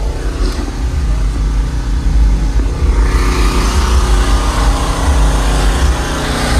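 A bass-heavy song played loud through a 2006 Toyota Sequoia's DD Audio subwoofer wall, the deep bass pulsing. The treble fills in about three seconds in.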